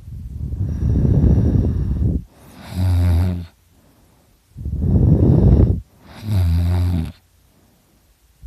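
A drunk man snoring loudly: two snore cycles, each a long rough rattle followed by a shorter, deeper buzzing tone, with a pause before the next begins near the end.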